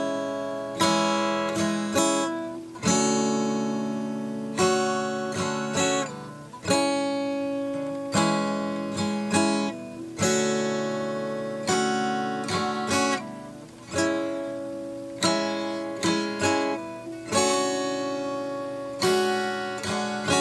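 Background music of a strummed acoustic guitar, each chord ringing out and fading before the next strum about every one to two seconds.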